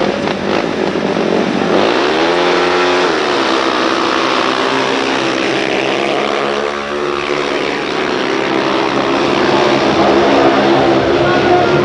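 Several speedway motorcycles with 500 cc single-cylinder methanol engines racing. The engines rise sharply in pitch about two seconds in as the bikes leave the start, dip, then keep running hard.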